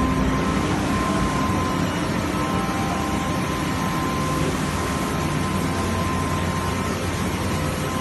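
PP melt-blown filter cartridge machine running: a steady mechanical hum and rushing noise with a faint, constant high tone.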